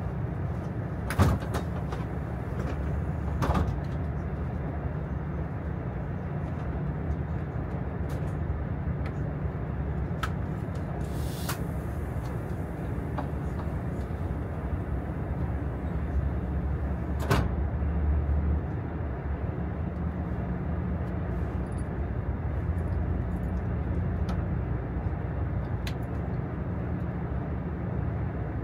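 KTX high-speed train running, heard from inside the passenger car: a steady low rumble, with a few sharp clicks and knocks and a brief hiss about halfway through.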